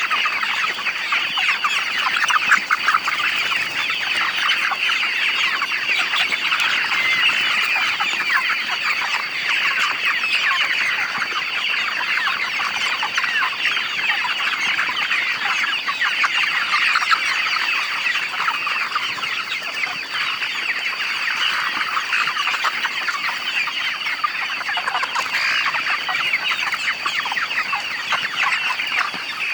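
A flock of chickens clucking and chirping, many birds calling at once without a break.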